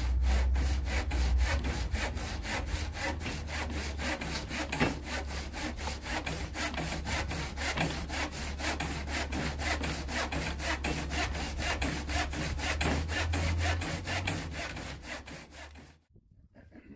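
Hand saw cutting through wood with even back-and-forth strokes, about three a second, that stop abruptly near the end.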